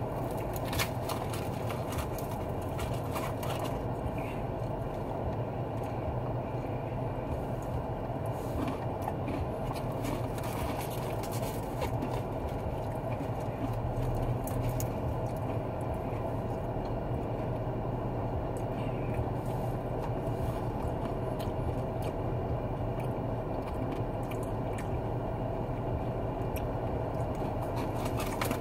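Chewing, with scattered small clicks and scrapes of handling food, over the steady hum of a parked car running.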